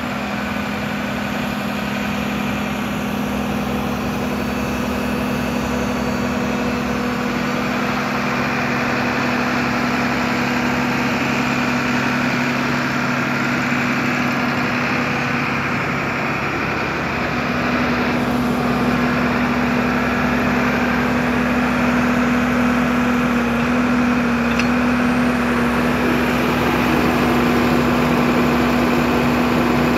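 New Holland TV145 tractor's six-cylinder diesel engine idling steadily, growing a little louder toward the end.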